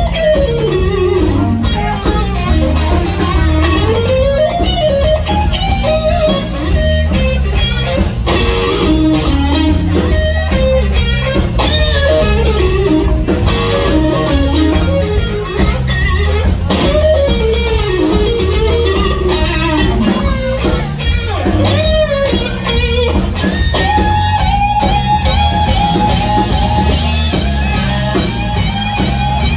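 Live blues-rock band: an electric guitar solos with bent, sliding notes over drums and a heavy low end, settling on one long held note near the end.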